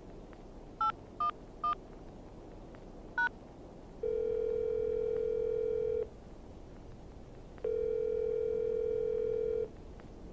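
Phone keypad: four short beeps as a number is dialled, then the ringing tone of the call going through, sounding twice for about two seconds each, over a faint low hiss.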